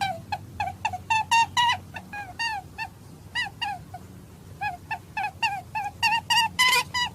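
Rabbit call used in hunting: a rapid series of short, high squeaks, each dropping in pitch, about three a second, with a pause of a second or so near the middle, over a steady low hum.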